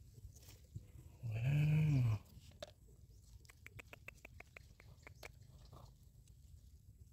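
A low call with a clear pitch, about a second long, that rises and then falls, followed by a quick run of light clicks and rustling as a hand digs through soil and dry plant litter.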